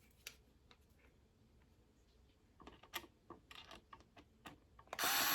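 Faint clicks and taps of small screws and plastic siren parts being handled while a screw is worked into its hole, with a cluster of sharper clicks in the middle. A louder burst of noise comes near the end.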